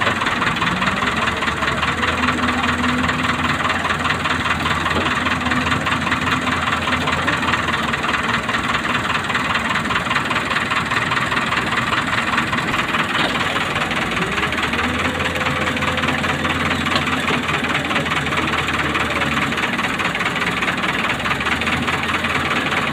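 Doosan Daewoo wheeled excavator's diesel engine running steadily throughout, its pitch rising and falling a few times as it works the boom and bucket. The machine is stuck in loose earth and is labouring to free itself.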